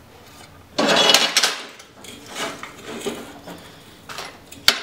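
Steel bar stock and locking pliers being handled and clamped on a steel plate: a scraping metal clatter about a second in, a few lighter knocks, and a sharp metallic click near the end.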